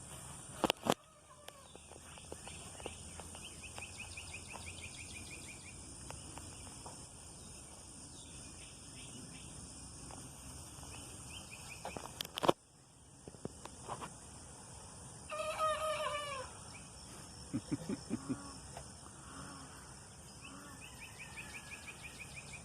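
A young rooster's short, wavering attempt at a crow about fifteen seconds in, followed by a few low clucks. Insects trill in the background, and there are two sharp knocks, one near the start and one about twelve seconds in.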